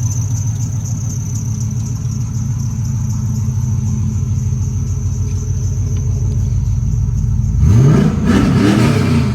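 LS V8 engine in a swapped Toyota idling with a steady high-pitched belt squeal, then revved up and back down near the end. The owner puts the squeak down to the belt.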